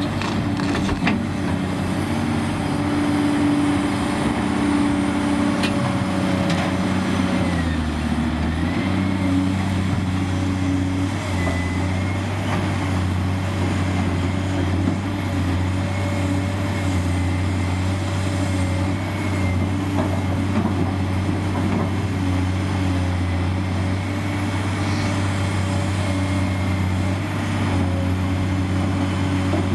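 Cat 385C LME excavator's diesel engine running steadily with the machine at rest, with a faint high whine above the engine note. The engine note shifts about eight seconds in, then holds steady.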